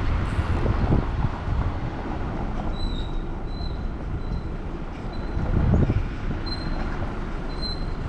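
A car driving, with steady low road rumble and gusts of wind noise swelling and easing. Through the middle and later part come several short, faint, high-pitched squeaks.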